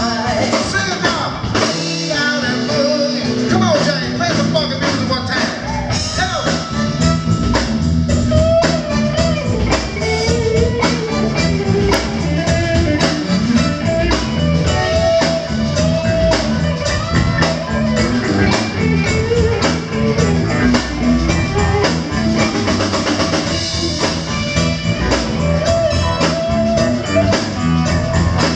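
Live band playing: electric bass, electric guitar, keyboards and a drum kit, with singing over it for the first few seconds before the music goes on without vocals.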